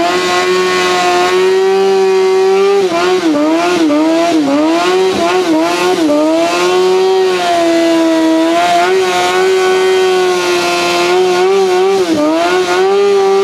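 Sport motorcycle engine held at high revs through a rear-tyre burnout, the pitch steady and dipping briefly a few times in the middle and again near the end.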